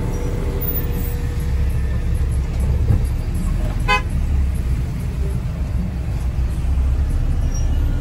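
Steady low rumble of a car driving in traffic, with a single short vehicle horn toot about four seconds in.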